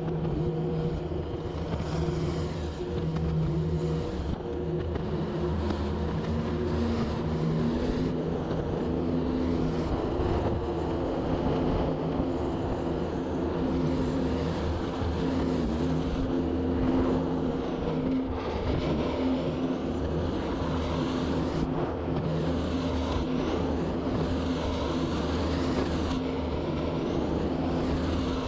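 Kubota skid steer loader's diesel engine running under load as it works dirt, a steady hum whose pitch rises a little several seconds in.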